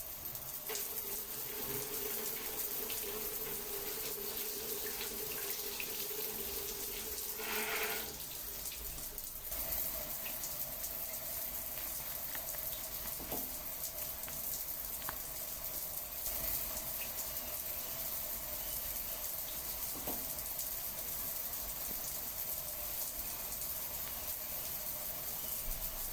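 Continuous flowing water, a steady rush with a faint ringing tone in it that steps up in pitch about eight to ten seconds in.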